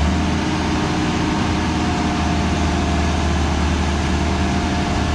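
Kobelco SK120 Mark 4 excavator's diesel engine running steadily as the machine slews, with a thin high whine held over the low engine hum; the engine runs smoothly.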